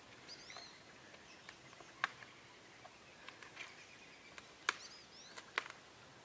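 Faint woodland quiet with small birds chirping in short, high, arched calls, and a few sharp clicks about two, four and a half and five and a half seconds in.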